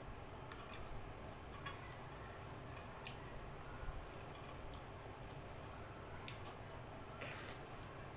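Fingers mixing and mashing rice with chicken curry gravy on a plate: soft wet squishing with scattered small clicks, and a brief louder scrape about seven seconds in.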